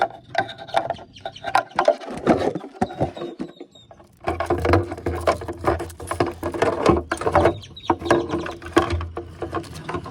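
Irregular plastic clicks, taps and rattles of a fog light and its housing being handled and fitted into a pickup's bumper opening, with a steady low hum that starts about four seconds in.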